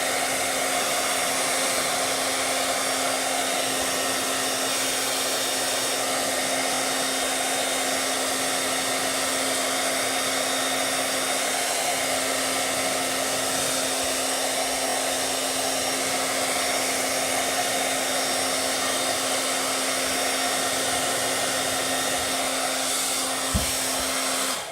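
Handheld hairdryer blowing steadily, a whooshing rush of air with a steady motor hum, then switched off right at the end so the sound cuts off suddenly.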